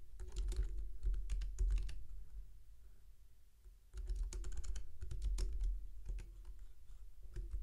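Typing on a computer keyboard: two runs of quick keystrokes with a pause of about two seconds between them, then a few more keys near the end, over a low steady hum.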